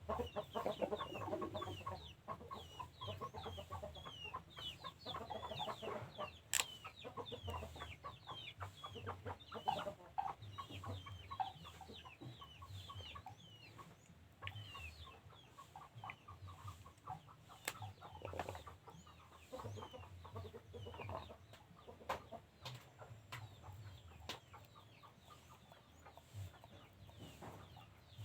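Chickens clucking, with a steady run of short, high, downward-sliding chirps several times a second and a couple of sharp clicks; busier in the first ten seconds or so.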